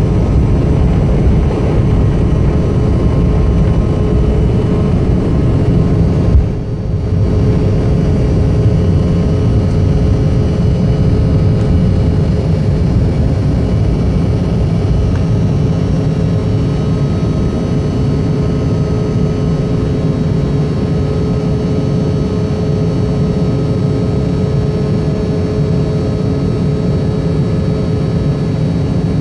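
A twin-engine jet airliner's turbofan engines at takeoff thrust, heard inside the cabin over the wing through the end of the takeoff roll, liftoff and initial climb: a loud steady engine noise with a constant hum tone over it. There is a brief knock about six seconds in.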